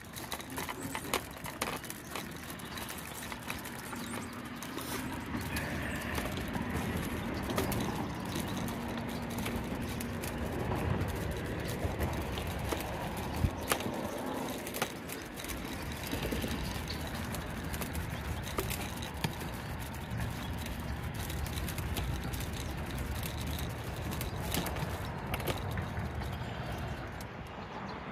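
Footsteps of a person walking across a wooden footbridge, a run of knocking steps on the boards, over a steady outdoor rush. Near the end the walker is on a paved path.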